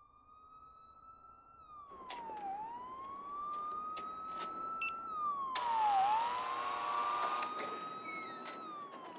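Police siren wailing, its pitch rising slowly and dropping quickly about every three and a half seconds. A few sharp clicks and a burst of hiss lasting about two seconds come about halfway through.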